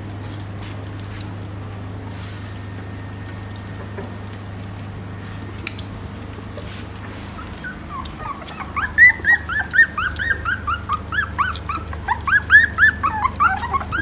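Newborn Phu Quoc Ridgeback puppies whimpering and squealing in quick, high-pitched cries, about three a second, starting about eight seconds in. Before that only a steady low hum is heard.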